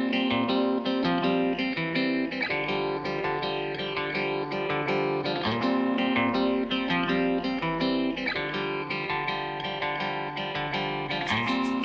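Background music played on plucked guitar, with a steady picked pattern and strummed chords near the end.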